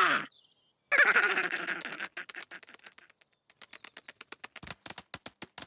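Cartoon birds squawking, then a long run of quick, sharp clicking taps, several a second.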